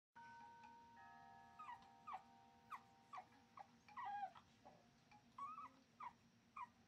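Pug puppy whimpering: about ten short, high whines, most falling in pitch. Under them, a few steady ringing tones start near the beginning and about a second in, and hold on for several seconds.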